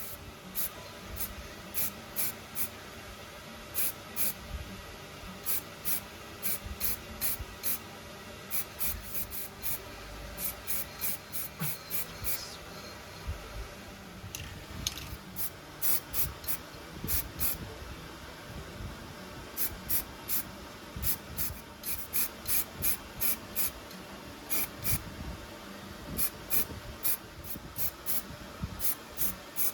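Hand scrubbing or sanding strokes on the rusty metal of an antique hand drill being cleaned: short hissing scrapes in quick runs of several a second, with brief pauses between runs.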